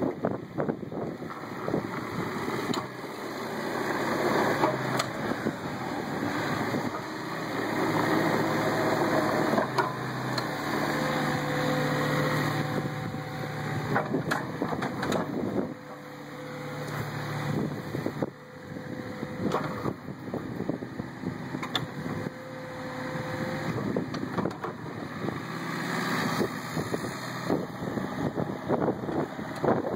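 Bobcat 337 compact excavator's diesel engine running, its note and level rising and falling as it works.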